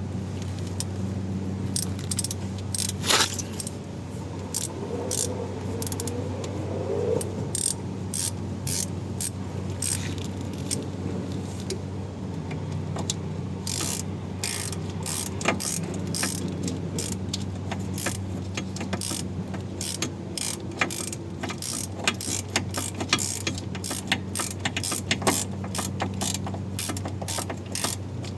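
Hand ratchet wrench clicking in uneven runs as bolts are turned during a wheel bearing and hub job, over a steady low hum.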